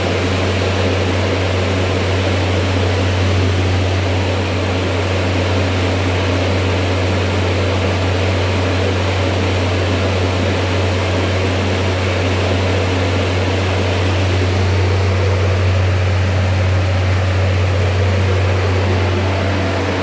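Truck refrigeration unit running steadily after repair: a constant low hum with fan air noise over it.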